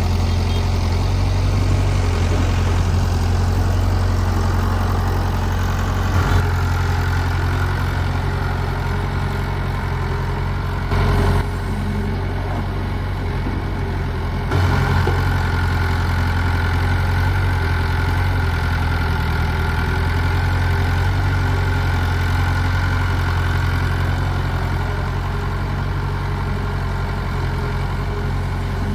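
Excavator's diesel engine running steadily with a deep, constant hum, with a brief knock about six seconds in.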